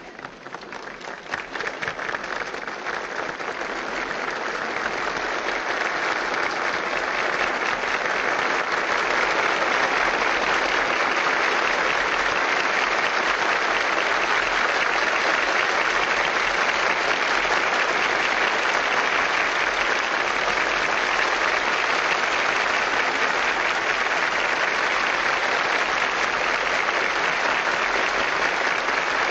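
A large audience applauding to welcome a speaker just introduced, the clapping swelling over the first several seconds and then holding steady.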